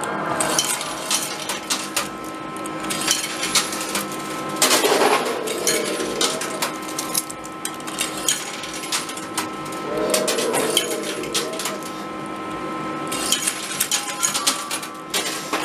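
Coins clinking and clattering in a coin pusher arcade machine: many small metallic clicks as coins drop onto the playfield and knock against the pile, over a steady background tone.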